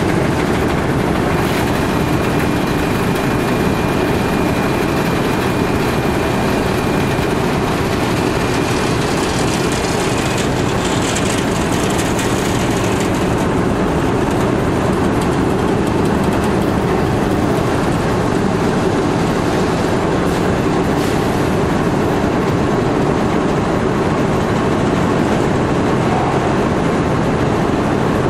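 PET staple-fiber opening and feeding machinery running steadily, a continuous mechanical din from the spiked lattice feeder, rollers and fiber-conveying system. A faint high whine sits over it for roughly the first ten seconds.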